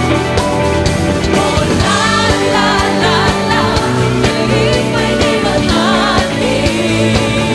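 Christian worship song played by a band: singing over sustained bass notes and a steady drum beat.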